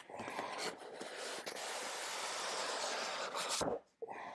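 Cardboard packaging sleeve sliding off a tight-fitting inner box, a steady rubbing hiss that ends with a short, louder scrape near the end.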